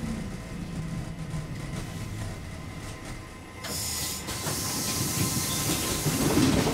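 Oslo SM83 tram running along its track, heard from inside the driver's cab: a steady low rumble of motors and wheels on the rails. A few seconds in, a hiss starts suddenly and carries on.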